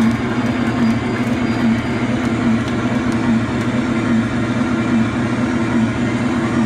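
Loud, steady wash of electric guitar noise and amplifier drone through effects pedals, with a low note pulsing a little faster than once a second.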